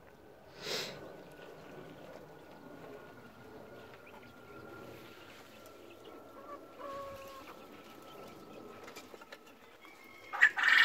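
Japanese quails and chabo bantam chickens clucking and calling at a low level, with a brief sharp noise about a second in. A short, loud burst of calls comes near the end.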